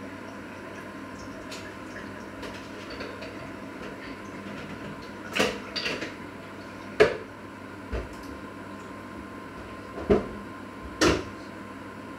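Kitchenware being handled at a sink: about six separate knocks and clatters of hard objects set down and picked up, spread over the second half, over a steady background hum.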